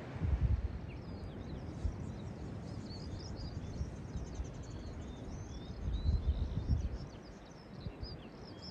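Small birds twittering in quick high chirps and trills, with gusts of wind buffeting the microphone at the start and again around six seconds in.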